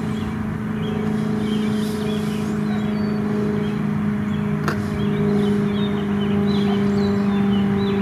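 Steady engine drone, an even pitched hum with a higher overtone, from passing traffic or an aircraft overhead. Small birds chirp intermittently over it, and there is one sharp click a little past halfway.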